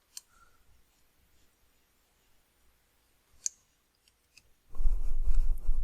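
Two single clicks of a computer input device, one just after the start and one about three and a half seconds in. Near the end a continuous scratchy rubbing with a low rumble begins, from the pointing device being dragged across the desk in sculpting strokes.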